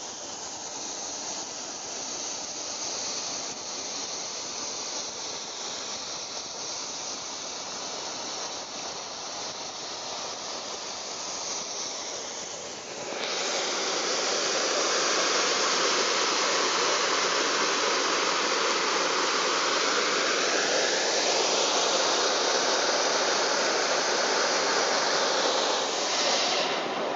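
Steady rushing hiss with no clear engine note, jumping louder at a cut about 13 seconds in.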